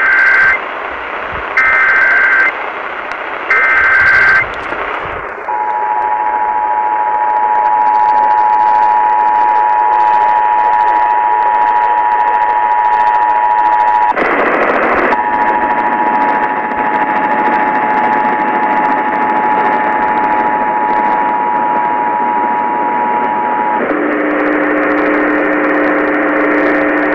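Emergency Alert System test received over AM radio under steady static hiss: three short bursts of the EAS digital header's screeching data tones, then the steady two-tone EAS attention signal held for about 18 seconds, broken once by about a second of plain static partway through.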